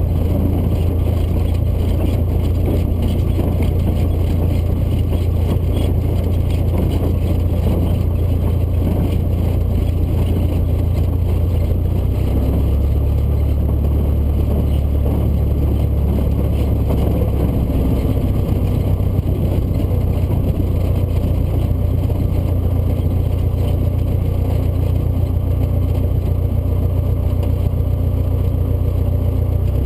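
Steady drone of a Cessna light aircraft's piston engine and propeller heard inside the cabin, with rushing airflow. The low drone drops slightly in pitch about twelve seconds in.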